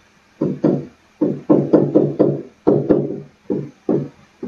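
A man's voice humming or murmuring in about a dozen short, flat-pitched notes in a row.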